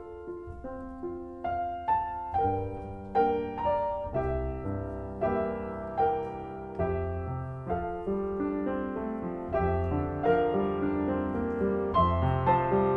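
Solo piano playing a slow, gentle carol, its notes struck about twice a second and swelling gradually louder.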